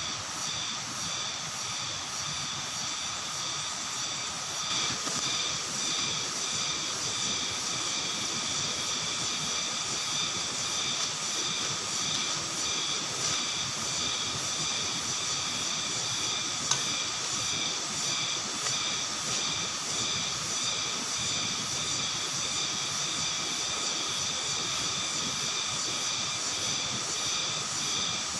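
Forest insect chorus: several steady, high, trilling tones layered over one another and pulsing evenly, with one sharp click about seventeen seconds in.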